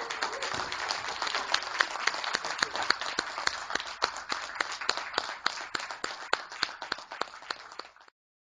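Audience applause: many hands clapping, thinning out and fading, with single claps standing out near the end, then cut off abruptly.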